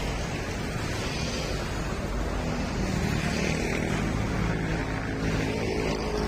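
Rusi Classic 250 motorcycle engine idling steadily through an aftermarket M4 universal exhaust muffler.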